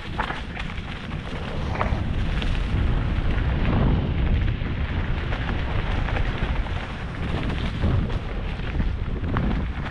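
Mountain bike descending a leaf-covered dirt singletrack at speed, heard from a helmet-mounted camera: a heavy, continuous low rumble of wind and trail noise on the microphone, with sharp rattles and clicks from the bike over bumps.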